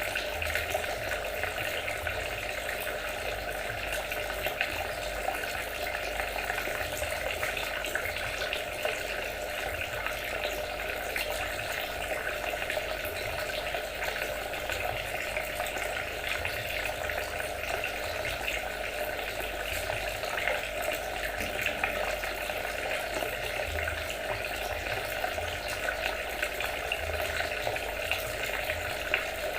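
Water trickling and splashing steadily, with a constant dense patter of small splashes.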